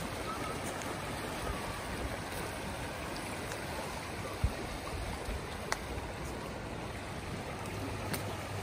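Swollen river in flood rushing past, a steady noise of fast-flowing water, with a short low thump about halfway through.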